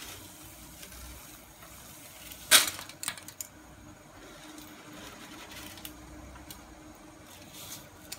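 Dry spaghetti noodles going into a metal pot of hot water, over a faint steady hum. A sharp knock comes about two and a half seconds in, followed by a few lighter clicks.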